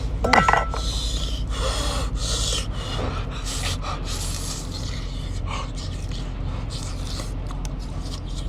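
Person eating scalding-hot, spicy food, with sharp breaths in and out and a brief vocal gasp about half a second in, over a steady low hum.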